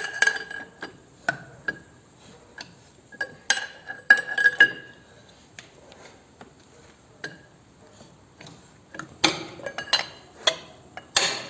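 Metal hand tools clinking and tapping against steel engine parts in irregular, separate knocks, some leaving a short metallic ring. The knocks come thicker near the end.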